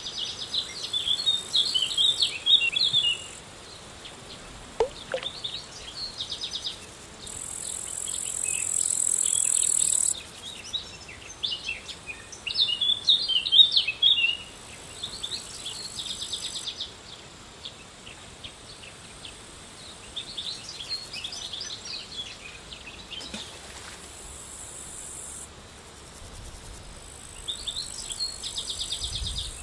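Outdoor insect chorus, a high steady trill that switches on and off every few seconds, with birds chirping in quick bursts over it.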